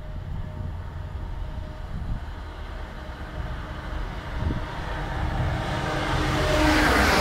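Class 68 diesel locomotive hauling a railhead treatment train approaching at speed, a low rumble that swells in the last couple of seconds as it draws level.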